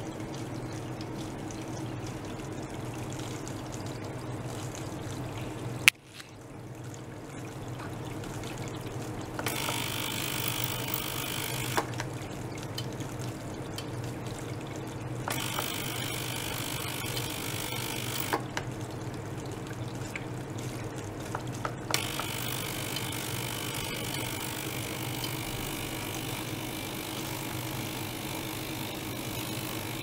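Small liquid-circulation pump humming steadily while it circulates water through tubing into a tank, with the sound of water pouring and trickling. A sharp click comes about six seconds in, and a brighter hiss switches on and off three times.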